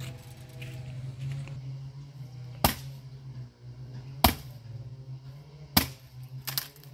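Axe chopping firewood: three sharp chops about a second and a half apart.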